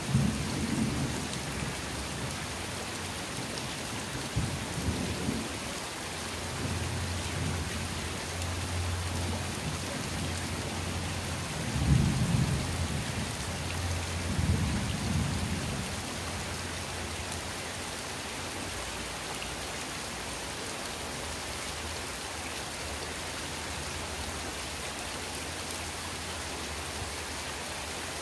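Steady rain falling on a wet concrete floor and potted plants, with several low rumbles of thunder, the loudest about twelve seconds in.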